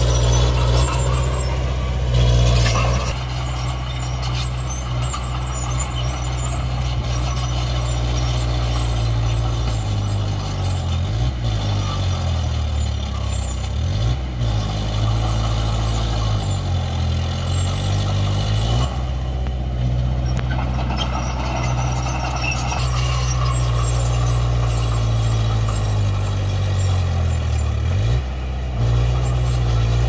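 Komatsu D20P bulldozer's diesel engine running, its engine speed dipping and rising again several times between about ten and eighteen seconds in, and once more near the end.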